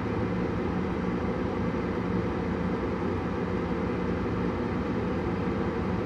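Gas furnace draft inducer fan motor running steadily: an even hum over a rush of air. It is a normal startup, the inducer building draft pressure to close the pressure switch before ignition.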